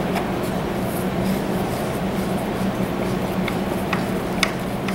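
Steady low hum, with a few faint light clicks near the end as screws and a screwdriver are worked against a plastic power hub on a metal chair frame.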